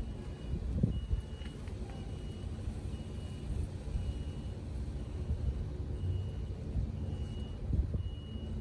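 A vehicle's reversing alarm beeping about once a second, with a low engine rumble underneath.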